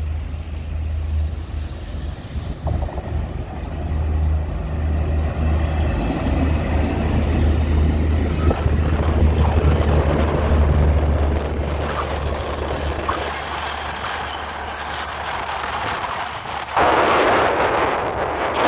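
Twin Alco WDM-3A diesel-electric locomotives, each with a sixteen-cylinder Alco 251 engine, passing close with a steady low engine drone, then the passenger coaches rolling by with wheel rumble and a few sharp clicks over rail joints. About seventeen seconds in a louder rushing noise comes in suddenly as the coaches pass.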